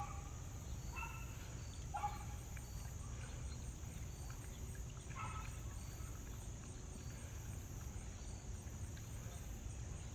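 Outdoor ambience: a steady low rumble of wind or handling noise, with a few short bird calls about one, two and five seconds in.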